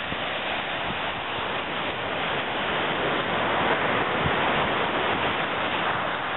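Steady rush of surf breaking on a beach, with wind on the microphone.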